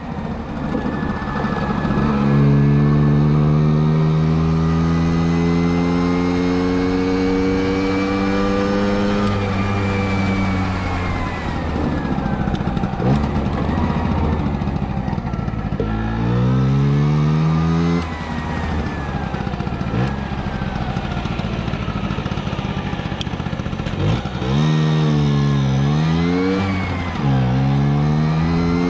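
Moped engine running and revving. Its pitch rises for several seconds, then settles to a lower drone broken by a short rev, and near the end it revs up and down in quick swings.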